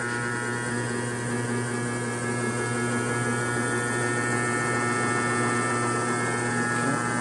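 DC motor driving a belt-and-clutch generator rig, just started and ramping up slowly under its motor drive: a steady hum that grows slightly louder.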